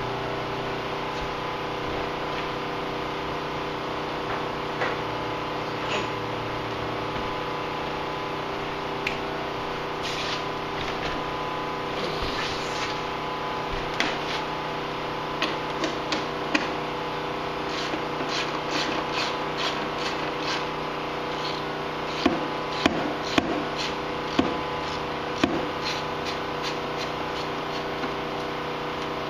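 Hand tools and parts clicking and knocking against a snowmobile's metal frame and plastic panels during disassembly: a run of light clicks, then several sharper knocks near the end, over a steady hum.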